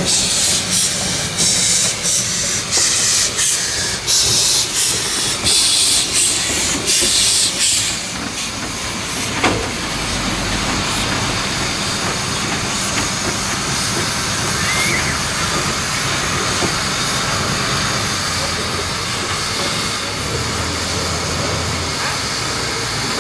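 The narrow-gauge steam locomotive kkStB U 298.102 hissing steam, with a run of loud, irregular steam bursts for about the first eight seconds, then a steady hiss.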